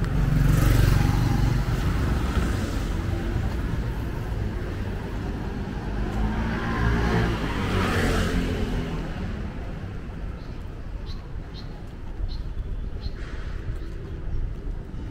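City street traffic: motor vehicles passing close by, one just after the start and another around the middle whose engine pitch rises and then falls as it goes past, over a steady background of traffic.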